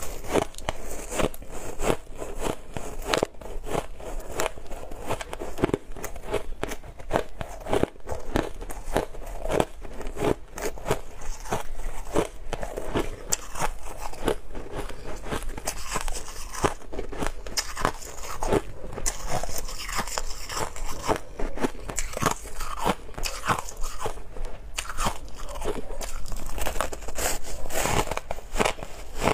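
Frosty, crumbly ice chunks being bitten and chewed close to the mouth: a continuous run of sharp crunches and crackles, several a second, with no pause.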